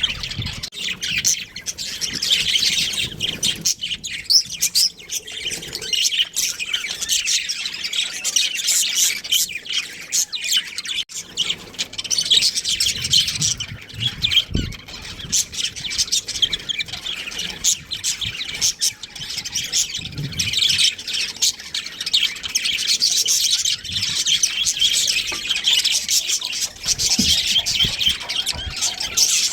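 Budgerigars chirping continuously, many short calls overlapping.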